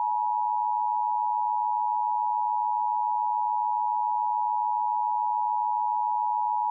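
Emergency Alert System attention signal: two steady tones of about 853 and 960 Hz sounded together as one continuous, unchanging alarm tone, the signal that an emergency message follows.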